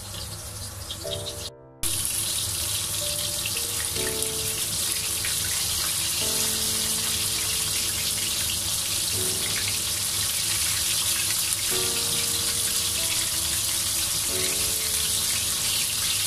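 Batter-coated chicken wings deep-frying in hot oil in a wok: a steady sizzling hiss, which cuts out briefly near the start and returns louder. Background music with held notes plays underneath.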